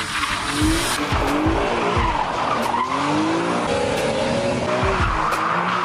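BMW E46 M3's straight-six engine revving up and down under load while the rear tyres spin and squeal through donuts.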